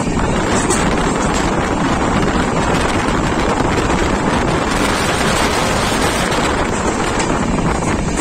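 Steady rush of wind buffeting the microphone, over the running noise of a passenger train moving at speed, heard from an open train window.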